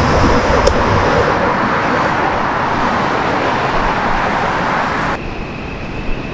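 Road traffic on the Brooklyn Bridge roadway: a steady rush of passing cars. It cuts off abruptly about five seconds in, giving way to a quieter city street hum with a faint steady whine.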